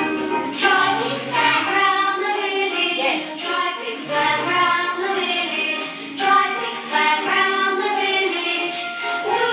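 Children's phonics song for the letter V playing from a television, with sung verses over backing music.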